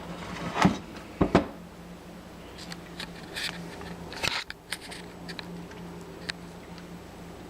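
Kitchen utensils and containers being handled: three sharp knocks in the first second and a half, then scattered light clicks and rattles, over a steady low hum.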